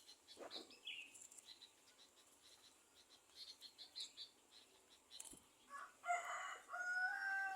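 A rooster crows about six seconds in, one long held call. Faint high ticking and chirping come before it.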